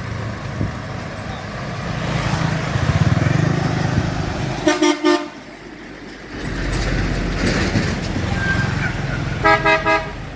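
A vehicle horn tooting in short blasts, a pair about five seconds in and three quick toots near the end, over a steady low engine noise.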